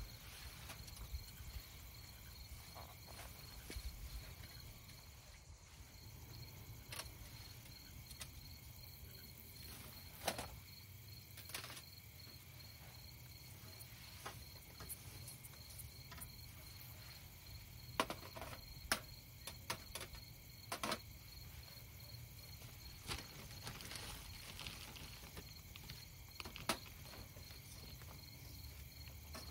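Crickets chirping steadily in an even, pulsed trill, with scattered clicks, knocks and rustles of a bag being handled over a metal grill box close by.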